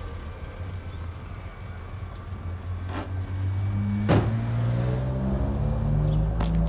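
A car engine running, its pitch rising about halfway through as it picks up speed, with two sharp clicks about three and four seconds in.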